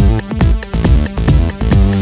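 Electronic dance music with a steady driving beat and synth melody.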